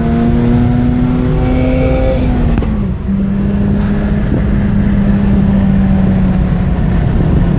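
Mazda RX-8's rotary engine running under way. The note climbs gently for about two seconds, drops in pitch with a brief dip about two and a half seconds in, then runs steady. The car has an intermittent misfire and fuel cut above about half throttle, which the owner thinks is an ignition problem but could be fuel.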